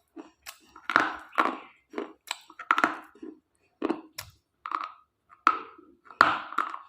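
Close-miked crunching of coloured slate pencils: a run of sharp, brittle snaps, about two a second, each trailing into a short gritty crunch.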